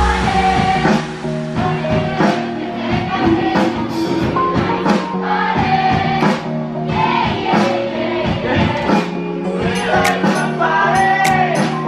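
A live band playing a song with a singer, drums keeping a steady beat, heard from among the audience in a small lounge.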